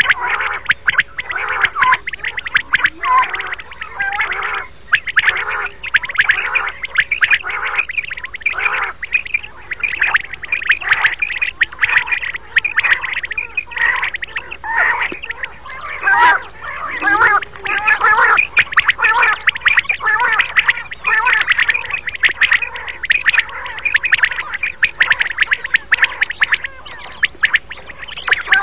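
Common quail calls repeating densely without a break, a recording of the kind played as a hunting lure to draw quail in.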